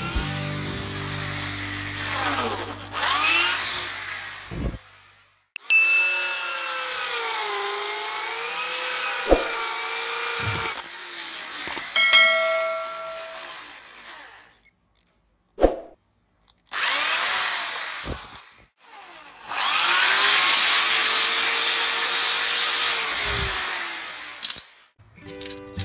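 Electric power tool, drill-like, running in several separate spells, its whine sliding up and down in pitch as it works, with a few sharp clicks between spells.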